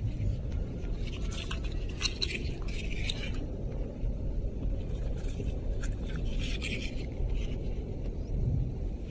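Brief scrapes and clicks of a rubber-gloved hand handling an ark shell on gritty wet sand, in two short spells, over a steady low rumble of wind on the microphone.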